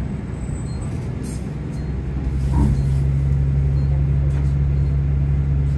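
A bus engine heard from inside the passenger cabin, running with a low drone that grows louder about two seconds in and then holds a steady pitch.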